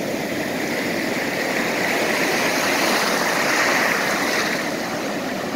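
Ocean surf: waves breaking and whitewater rushing through the shallows, swelling to its loudest about two-thirds of the way through and easing off near the end.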